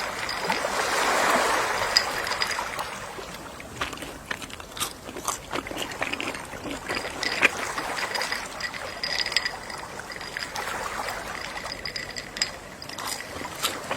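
Gentle sea waves washing in and trickling back, swelling about a second in and again near the end, with many small splashes and crackles of water.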